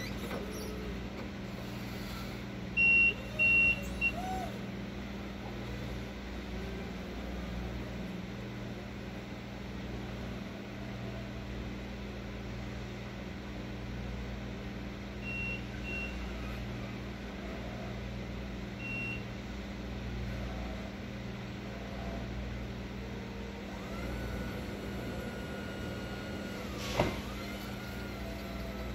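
Electric reach truck working: a steady low hum, with two short, loud high-pitched warning beeps about three seconds in and fainter single beeps later. Near the end a steady whine runs for about three seconds as the mast lifts a pallet, ending in a sharp knock.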